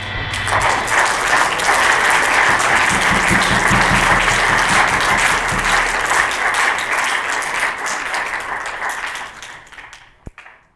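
Audience applauding, building up within the first second and fading out over the last couple of seconds.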